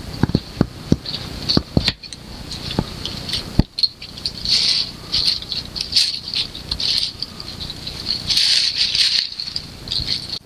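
Dry brush and small twigs rustling, snapping and crackling as they are fed into and catch fire in a Solo Stove wood-burning can stove. There are several sharp snaps in the first two seconds, followed by an irregular crackle and rustle.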